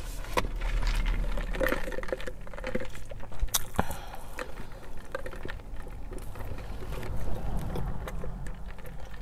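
Cars passing outside, heard from inside a parked car as a low rush that swells and fades over a steady rumble, with scattered small clicks.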